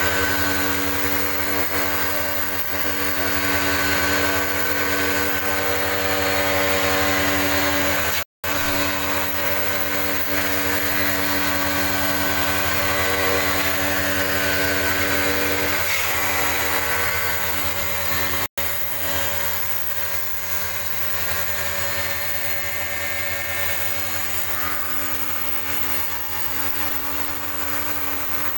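Portable electric pressure washer running steadily, its motor-driven pump humming. The sound cuts out very briefly twice.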